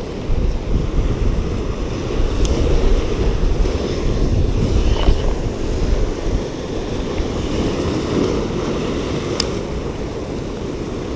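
Surf breaking and washing in among the jetty's rocks, with wind buffeting the microphone. Two short sharp clicks, about two seconds in and near the end.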